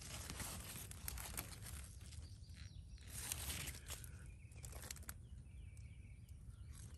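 Pepper plant leaves rustling and brushing against the phone as it is pushed in among the plants, in faint swells with light clicks.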